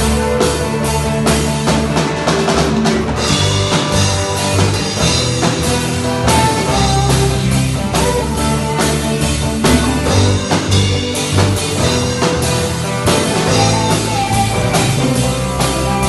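A worship band playing, a drum kit with bass drum and snare keeping a steady beat under held instrumental notes.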